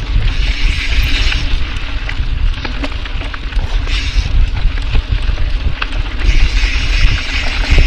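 Mountain bike ridden fast down a dirt trail: constant wind buffeting on the camera microphone and tyre rumble, with a few sharp knocks from the trail. The DT Swiss 350 rear hub's ratchet freehub gives a high buzz while coasting, in spells near the start, around the middle and through the last couple of seconds.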